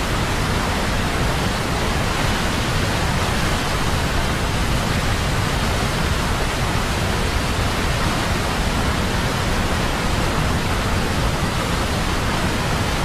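Steady, even rushing of fast-flowing floodwater, with no breaks or separate events.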